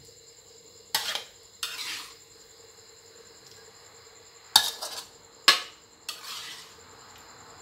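Spatula scraping and knocking against the inside of an aluminium wok, in about five short strokes, as a saucy stir-fry is scooped out onto a plate.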